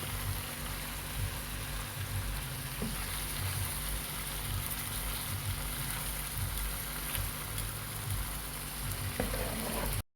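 Marinated chicken pieces frying in butter in a pan, a steady sizzle that cuts out abruptly near the end.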